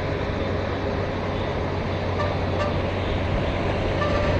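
Chaco–Corrientes road bridge giving off a steady rumble with a constant low hum under vehicle traffic, the noise the bridge makes.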